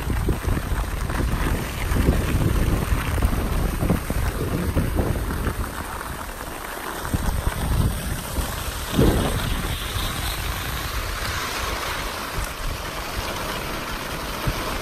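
Wind buffeting the microphone of a camera carried by a moving skier, a gusty low rumble, with the hiss of skis sliding over groomed snow.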